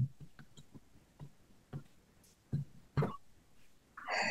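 Soft fingertip taps on the body, a handful of short knocks at uneven intervals, as acupressure points are tapped in MET tapping therapy. A brief, louder breathy sound comes near the end.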